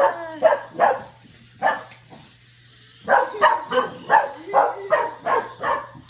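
Dog barking in quick runs of short barks, about three a second, with a pause of about a second midway; the dog is worked up chasing a remote-control car.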